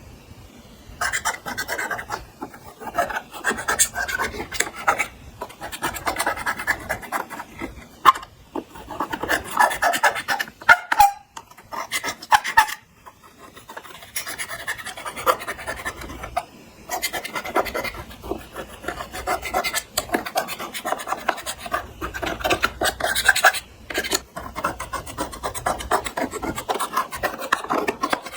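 Clear slime being mixed and squished, with sticky crackling and many tiny popping clicks. It starts about a second in and pauses briefly about halfway through.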